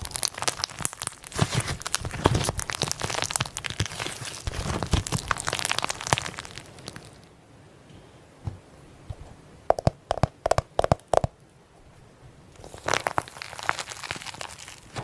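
Slime being squeezed and worked by hand, a dense crackling and crunching. It goes quieter about halfway through, with a few sharp pops, then crackles again near the end.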